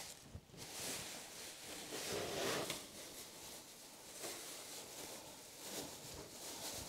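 Thin plastic masking sheet crinkling and rustling as it is handled and taped down over a car's rear end, with short, irregular scratchy rustles and light ticks.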